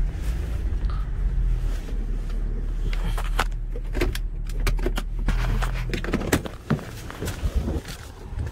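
A car with its engine running, a steady low rumble that drops away about six seconds in, with scattered clicks and knocks of handling the car around it.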